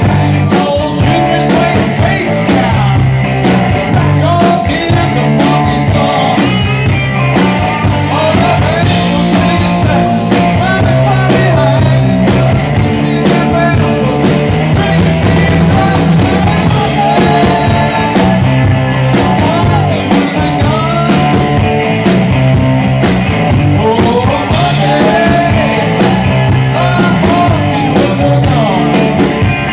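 Live rock band playing loudly through amplifiers: electric guitars, bass guitar and a drum kit.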